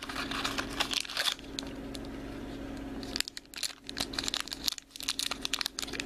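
Small cardboard blind box being torn open by hand and its packaging crinkled as the toy is unwrapped, in crackly spells with short pauses about three seconds in and again near five seconds.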